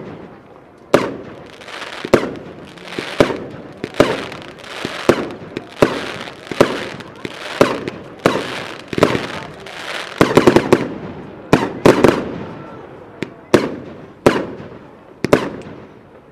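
Royal Fireworks 'Garden of Eden' fireworks cake firing shot after shot: heavy aerial bursts banging about once a second, each trailing off in crackle and echo, with a quick flurry of bangs about ten seconds in.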